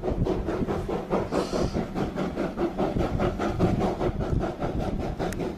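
A train pushing through deep snow: a steady, fast, rhythmic rasping noise with no break.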